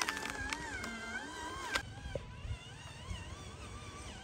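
Small electric drive motors of remote-controlled toy dump trucks whining, the pitch wavering up and down, with a few sharp clicks in the first two seconds.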